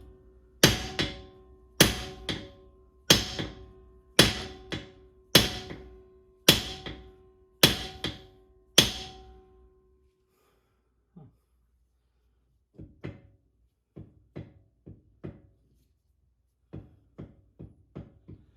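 Hammer blows knocking the pinion shaft out of a Chrysler 8.25 rear axle: about eight hard strikes roughly a second apart, each leaving a metallic ring, with the pinion not yet coming free. After the strikes stop, only faint light taps and clicks.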